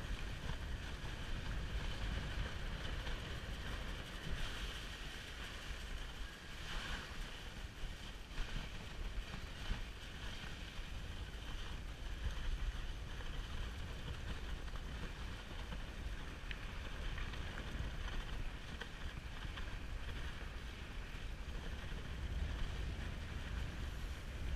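A dog sled's runners hissing steadily over snow as the dog team pulls it along, with wind rumbling on the microphone.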